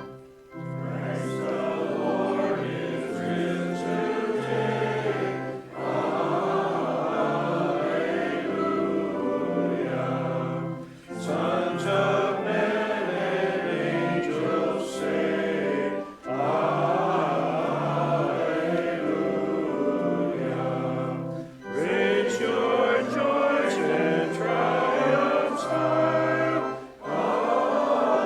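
Church congregation singing a hymn with pipe-organ-style accompaniment, the organ holding sustained bass notes under the voices. The singing comes in lines of about five seconds each, with a short pause for breath between them.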